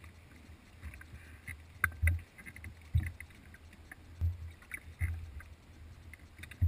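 Small waves slapping against the tubes of an inflatable pontoon boat: irregular low thuds roughly a second apart, with small splashy clicks.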